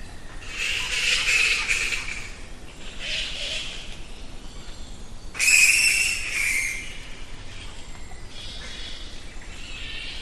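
Bats squeaking and chittering in several shrill bursts, the loudest starting suddenly about halfway through.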